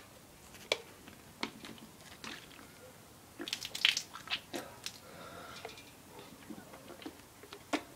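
Quiet mouth noises and the small clicks and crackles of a thin plastic water bottle being handled, with a denser burst about halfway through. After that come soft sips and swallows as water is drunk from the bottle, easing a throat burnt by cinnamon.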